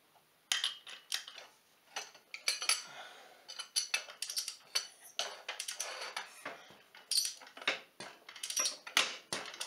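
Irregular sharp metallic clinks of hand tools against steel as a wrench turns a homemade threaded-rod puller to push the drive clutch off a Polaris ATV engine, with a pry bar holding the clutch. The clinks start about half a second in.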